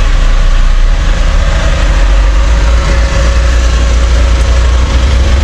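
Scania G440 truck's 13-litre inline-six diesel running at low revs, heard from inside the cab as the truck creeps forward: a steady, deep rumble.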